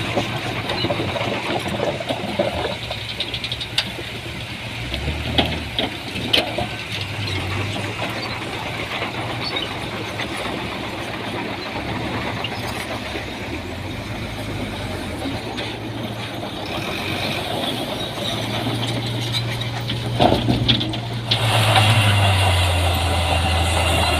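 Diesel engine of heavy earthmoving machinery running, its note rising and falling with load, with a few sharp metal clanks. Near the end it gets suddenly louder and fuller.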